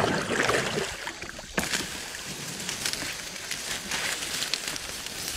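Plastic kayak pushing into dense reeds: stems rustling and scraping along the hull and paddle in a steady crackle, with water sloshing around the bow.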